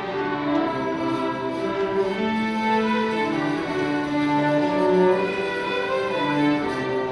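Middle school string orchestra playing, several held notes sounding together and moving in slow steps.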